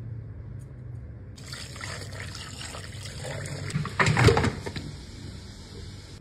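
Broth pouring and trickling into a stainless-steel colander as cooked sheep's head and trotters are tipped in from the pot. The loudest moment is a splash about four seconds in.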